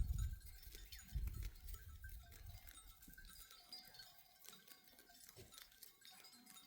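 Goats and sheep of a flock heard faintly, with many scattered small clicks and clinks.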